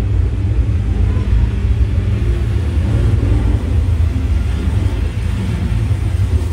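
A film's action soundtrack played loudly through a boAt Aavante Bar 3100D soundbar system during a sound test, picked up in the room: a dense, steady deep rumble of destruction effects.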